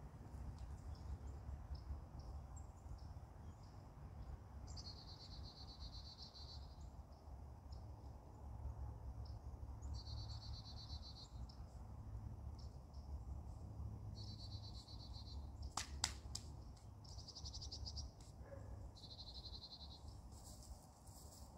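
A bird's fast, even trill, repeated five times with pauses of a few seconds, over a steady low rumble. A single sharp click sounds about sixteen seconds in.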